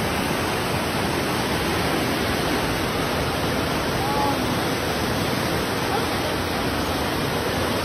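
Fast-flowing floodwater rushing in a torrent through a street: a steady, unbroken rushing noise.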